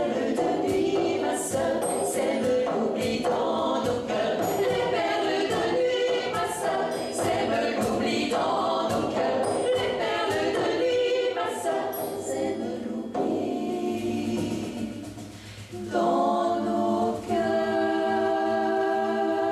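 Female vocal ensemble singing in close harmony over a steady beat on cajón and frame drum. Past the middle the voices and beat thin out and fade, then the voices come back on a long held chord near the end.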